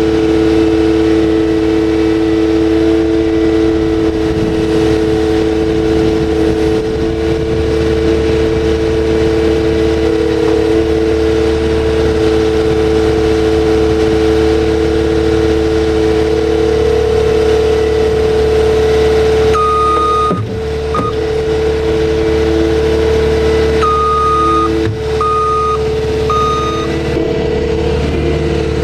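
Full-scale skid steer running steadily with a constant hum while it works. In the second half, an alarm on the machine beeps several times at one pitch, in short irregular runs.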